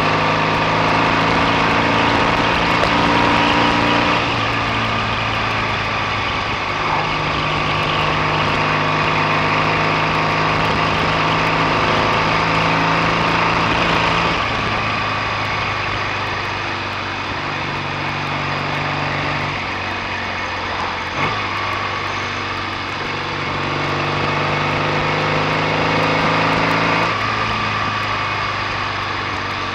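BSA A65 650cc parallel-twin engine running under way on the road, holding a fairly steady note, with its tone shifting a few times, over wind noise.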